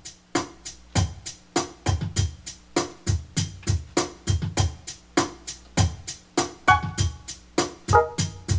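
Music: a drum beat of sharp, regular hits, with held keyboard notes coming in near the end.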